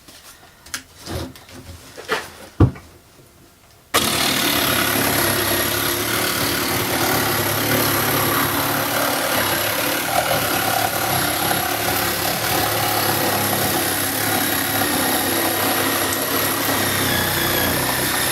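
A few knocks, then about four seconds in a Parkside PSTDA 20-Li A1 cordless jigsaw starts abruptly and saws steadily through half-inch OSB (Sterling board) at below full speed.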